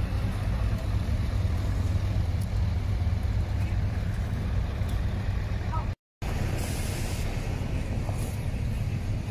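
Heavy truck's diesel engine running as the truck drives slowly past, a steady low rumble. The sound drops out for a moment about six seconds in, and a short hiss follows just after.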